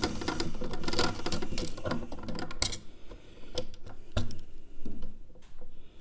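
Insulated screwdriver working the screws of a metal fused connection unit's front plate: dense rapid clicking and scraping for nearly three seconds, then a few scattered clicks and knocks as the plate comes away.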